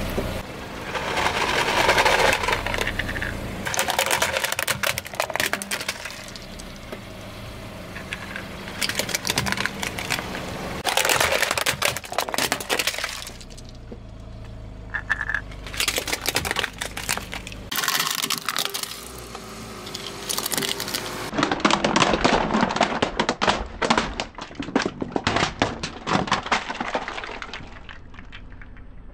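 Hard plastic toys cracking, snapping and crunching under a car tyre, in repeated bursts of dense crackling.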